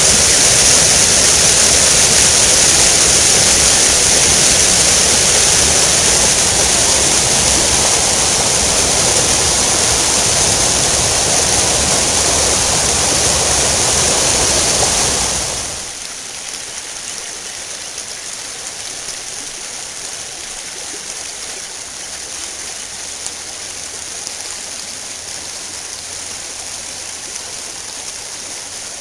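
Fast, muddy creek water rushing and churning over rocks in a loud, steady rush. About halfway through the sound drops sharply to a quieter steady rush.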